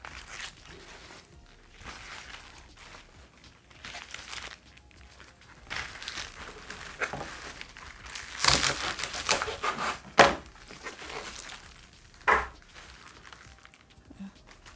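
Fresh leafy greens rustling and crinkling as they are handled, then a kitchen knife cutting through their stalks against a chopping board, with several sharp chops past the middle and one more a couple of seconds later.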